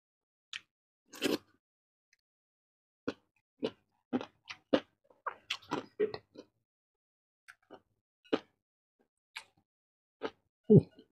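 Close eating sounds of a person chewing and smacking his lips, picked up on a clip-on microphone, as scattered short clicks and smacks. There is a louder burst about a second in and a deeper thump near the end as he handles the beef bone over the bowl.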